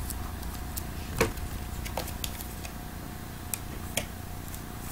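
Trading cards being handled by hand: scattered light clicks and taps, the sharpest about a second in, over a steady low hum.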